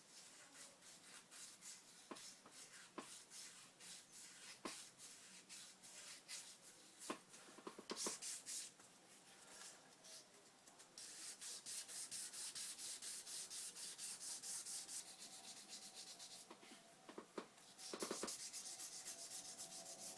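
80-grit sandpaper rubbed by hand over cured body filler on an alloy wheel, flattening the filled kerb damage: scratchy back-and-forth strokes, spaced out at first, then quicker and steadier from about halfway.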